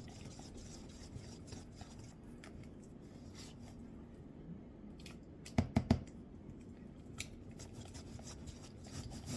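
A utensil stirring and folding shredded cheese into a thick chicken wing dip in a metal pot: soft scraping and squishing with small clicks. A few sharp clacks of the utensil on the pot come about halfway through.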